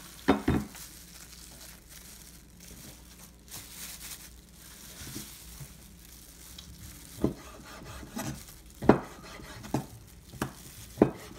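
Chef's knife cutting through raw chicken breast and knocking on a wooden cutting board: sharp knocks, two just after the start and several more in the last four seconds, over a soft rustle of a plastic glove and wet meat.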